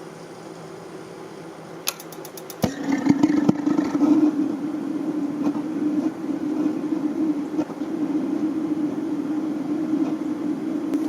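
Atwood RV water heater's gas burner being lit: a quick run of clicks about two seconds in, then the burner catches suddenly and burns steadily and loudly.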